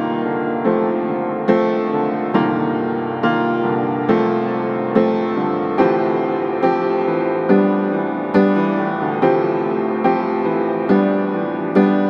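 Background piano music: chords struck at an even, unhurried pace, about one a second, each ringing and fading before the next.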